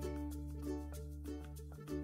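Background music: quick picked notes over long-held bass notes.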